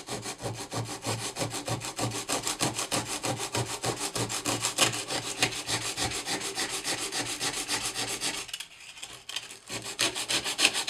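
Worn 100-grit sandpaper rubbed by hand in quick back-and-forth strokes, about three a second, over the aluminum bell housing of a 1982 Royal Model 880 upright vacuum, working out deep scratches. The strokes stop for about a second near the end, then start again.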